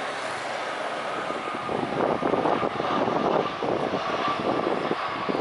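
Citilink Airbus A320-200's jet engines running at approach power as it flares and touches down: a thin, steady, high-pitched whine over rushing engine noise, growing louder about two seconds in.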